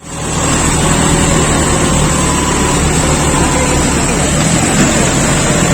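A vehicle engine running loud and steady close by, starting abruptly after a cut.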